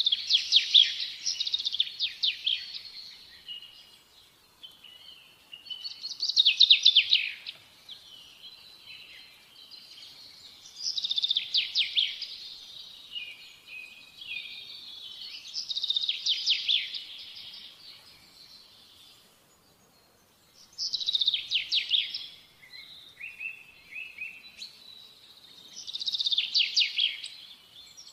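A songbird singing in short, rapid trilled phrases, one about every five seconds, with softer chirps in between.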